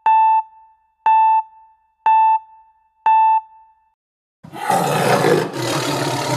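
Four short electronic beeps, about one a second, then a big cat's roar sound effect lasting about two and a half seconds, dubbed over a kitten opening its mouth.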